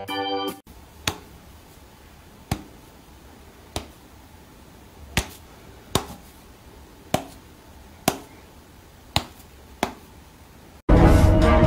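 A series of about nine sharp single clicks, roughly a second apart, over a quiet room background. Music plays briefly at the start, and loud music with a car horn cuts in near the end.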